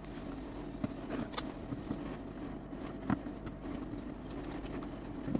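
A few light, scattered clicks and rattles of small building-kit parts being handled, over a steady low hum.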